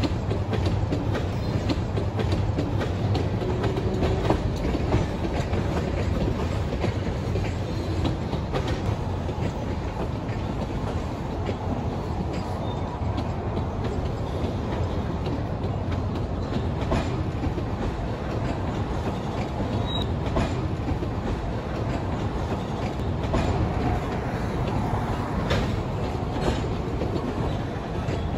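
Freight train of tank cars rolling past: a steady rumble with wheels clicking over rail joints.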